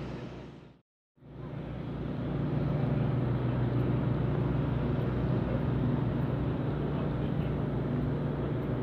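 Diesel engines of parked fire trucks running at idle, a steady low rumble. It fades out to silence for a moment about a second in and comes back.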